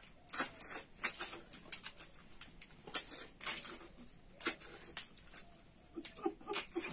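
Close-up eating sounds of freshwater snails (tharoi) being sucked out of their shells: irregular wet sucking clicks and smacks, several a second.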